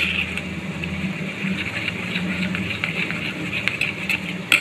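Steel spoon stirring gram flour and water in a steel bowl, scraping and clinking against the bowl a few times, loudest near the end, over a steady low hum.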